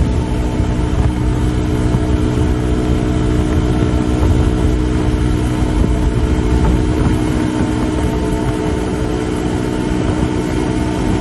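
Suzuki DR150's single-cylinder four-stroke engine running at a steady, high road speed, its note held at one pitch, with a heavy low rumble of wind and road noise.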